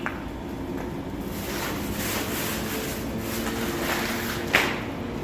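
Rustling and shuffling of packaging as office-chair parts are handled and taken out of the box, with one sharp knock about four and a half seconds in.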